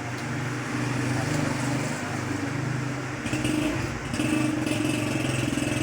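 Motorcycle engine running steadily, getting a little louder about a second in and again from about three seconds in.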